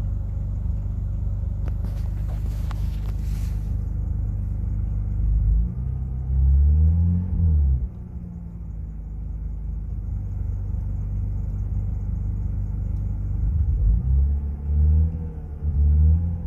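Turbocharged BMW M54B25 straight-six idling with a knock, revved up and back down about six seconds in and again near the end. The owner suspects piston slap, or else a valvetrain fault such as lifters or valves, after the engine ran lean at about 18:1 on boost.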